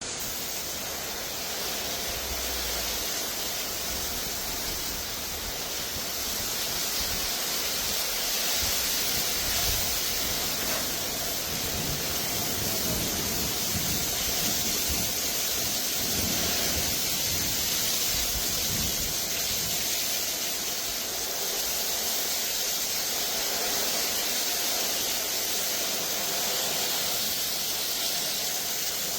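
Thunderstorm with heavy rain and strong wind gusts: a steady hiss of the downpour, with gusts buffeting the microphone in low rumbles through the middle.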